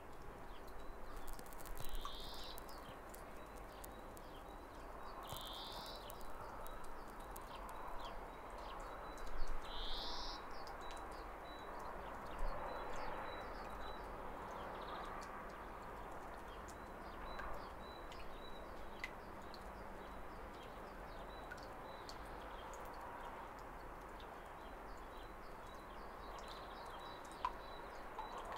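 Bird calls: three short rising calls in the first ten seconds over quiet rural background sound.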